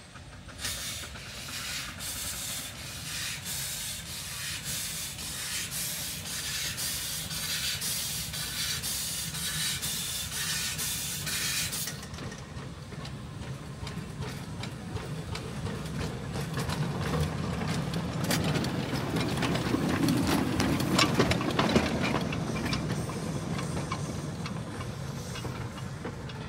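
Half-scale Tom Thumb replica steam locomotive running on narrow-gauge track. For about the first twelve seconds its exhaust gives a fast, regular run of sharp steam chuffs, which then stop suddenly. After that come the rumble and clatter of its wheels on the rails, loudest around twenty seconds in.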